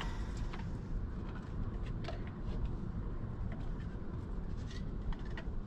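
A rubber dough scraper scraping sticky paste out of a bowl, with a few soft taps against the bowl, over a steady low hum.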